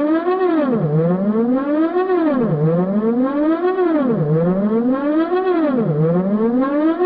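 Synthesized alarm siren: a low pitched tone sweeping up and back down again, over and over, about once every second and a half to two seconds.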